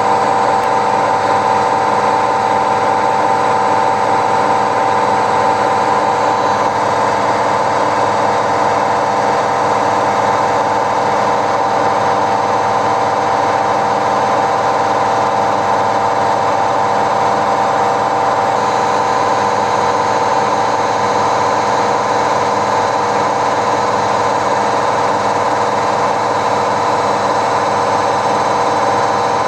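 Samsung washing machine running with a loud, steady mechanical noise that carries a strong hum, the abnormal deafening noise it has developed.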